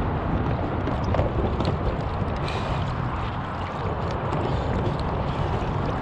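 Steady wind rumble on the microphone over water moving against a small plastic kayak hull, with a few faint light ticks.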